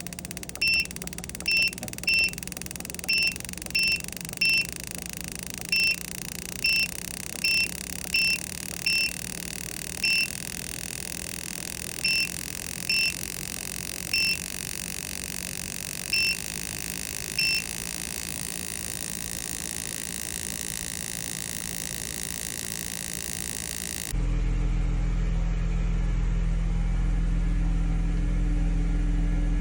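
A string of about eighteen short electronic beeps at uneven intervals over a steady hiss. About 24 seconds in, it gives way suddenly to a steady low rumble of an engine idling, likely the AMG's twin-turbo V8.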